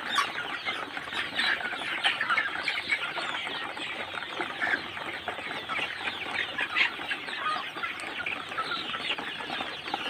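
A flock of young Sonali chickens, about 52 days old, chirping and clucking together, many short falling calls overlapping in a continuous chatter.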